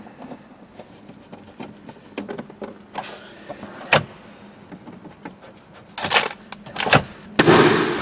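Small clicks and scrapes of a hand screwdriver and plastic trim as a Saab 9-3's glove box is screwed back into the dashboard. There is a sharp click about four seconds in, louder knocks a couple of seconds later, and a rustling burst near the end.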